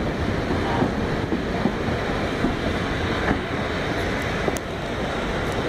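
Passenger train running slowly along the track, heard from an open window of the moving carriage, with wind on the microphone and a few faint ticks near the end.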